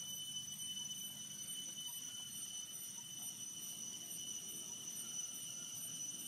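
Faint outdoor ambience dominated by a steady, high-pitched insect drone that holds one pitch throughout, with a few tiny faint chirps.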